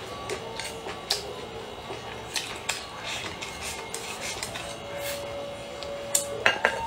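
Wooden chopsticks clicking and scraping against a ceramic rice bowl as rice is scooped into the mouth, irregular light clacks. A few louder clacks come near the end as the chopsticks go into the serving plate.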